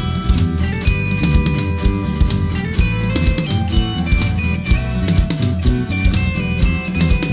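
Rock band playing an instrumental passage without vocals: drum kit with cymbal hits on a steady beat, with electric guitar and electric bass.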